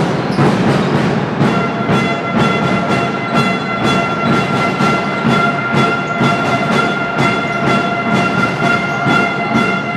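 Fans' drums beating a fast, steady rhythm in the sports hall over crowd noise, joined about a second and a half in by a long, steady high-pitched tone that holds on without a break.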